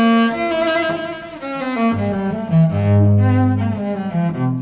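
Instrumental classical music with bowed strings. A low bass line sits under a moving melody, with notes changing several times a second.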